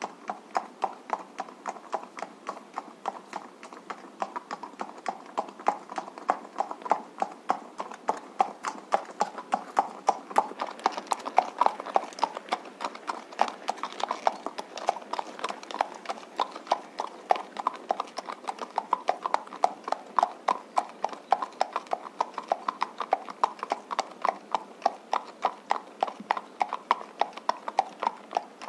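A horse trotting, its hooves beating in a steady, even rhythm of about four hoofbeats a second.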